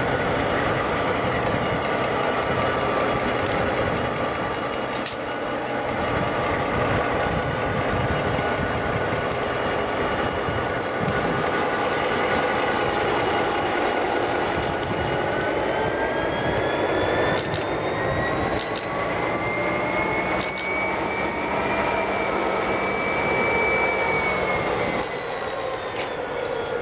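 EMD-engined diesel locomotive passing close with a train of hopper wagons: the diesel engine drones steadily over the rumble and clicks of wheels on rail. About halfway through a high whine sets in, slowly rises in pitch, holds, and drops off near the end.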